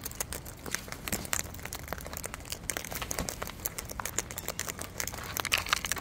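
Sulphur-crested cockatoos feeding from a tray of seed mix: a dense, irregular crackle of sharp clicks as their beaks crack seed husks and rummage through the seed.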